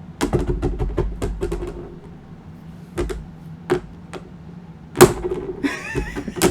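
Titanium and stainless steel flippo fidget pieces clicking against each other as they are flipped and rolled in the hand: a quick run of sharp clicks, then a few single clacks, the loudest about five seconds in.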